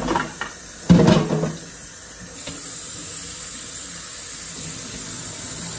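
A couple of clatters in the first second and a half, then a kitchen faucet starts running with a steady hiss: water rinsing frozen shrimp in a strainer to wash the ice off.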